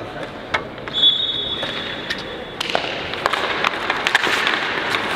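A whistle blows once, a steady high tone held about a second and a half. Then ice hockey play takes over: skates scraping on the ice and a rapid run of sharp clacks from sticks and puck.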